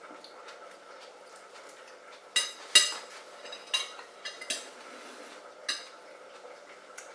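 A metal fork clinking against a ceramic bowl of cut celery and tomato: several sharp clinks with a brief ring, the loudest about three seconds in.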